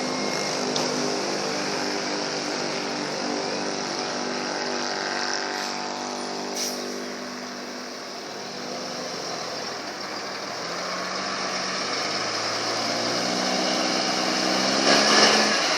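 Volkswagen Constellation 24-250 truck's straight-piped diesel engine rumbling as the loaded truck pulls away. The engine note holds steady, sinks and quietens a little before the middle, then climbs and grows louder through the second half as the truck accelerates.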